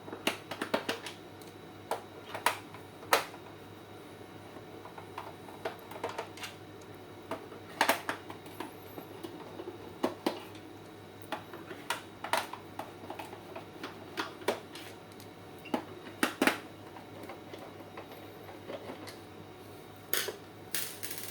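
Plastic case of an APC Back-UPS ES500 being pried open and handled: irregular sharp plastic clicks and knocks, a few at a time with short gaps between.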